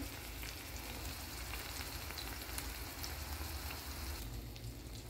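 Sliced onion rings frying in oil in a frying pan: a soft, steady sizzle, a little duller near the end.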